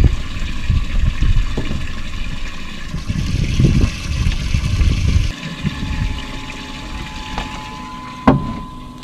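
Water sloshing and splashing in a boat's livewell stocked with live menhaden, then a single knock near the end as the livewell hatch lid is shut.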